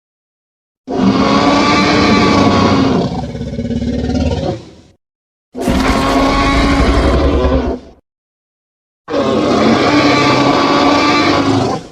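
Tyrannosaurus rex roar sound effects: three separate long, deep roars, the first about four seconds long and the next two about two to three seconds each, with dead silence between them.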